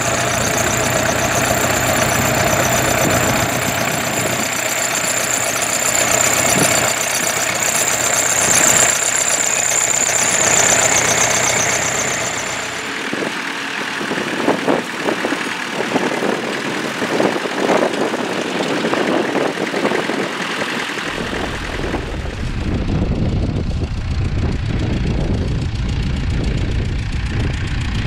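Vintage International tractor engines running steadily under load as they pull ploughs through stubble. The sound changes abruptly twice, and the last part has a much deeper rumble.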